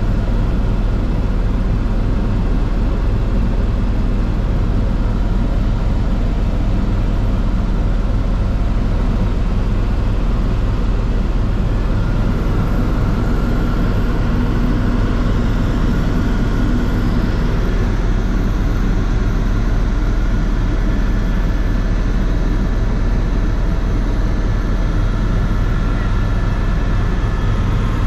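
Helicopter in cruising flight heard from inside the cabin: a loud, steady drone of rotor and engine. A faint higher whine joins about halfway through.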